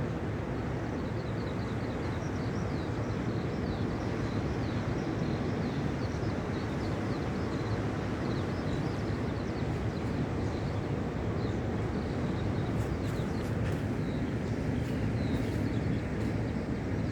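Steady rumble of sea surf and wind at the shore, with faint high chirps running over it through much of the stretch.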